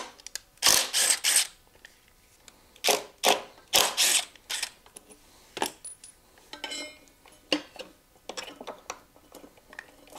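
Hand tools and metal brake parts clicking, scraping and rattling in short bursts while a motorcycle's front disc brake caliper and fork are worked on, with a quick run of clicks near the end.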